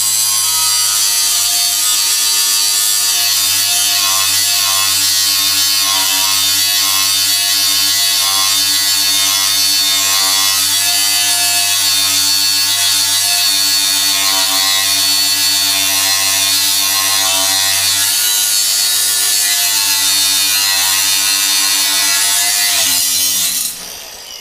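Milwaukee cordless angle grinder with a cut-off wheel, running steadily as it cuts through steel plate, a continuous high-pitched whine and grinding hiss. The cut is smooth, with no vibration coming through the handle. Near the end the grinder is switched off and winds down.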